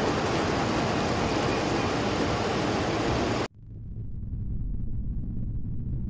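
Steady outdoor background noise with a low engine-like rumble under it, which cuts off abruptly about three and a half seconds in. A deep low rumble then swells up in its place.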